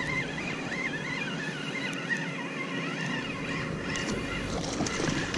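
Spinning reel being cranked steadily while a hooked walleye is reeled in, with a steady low hum underneath.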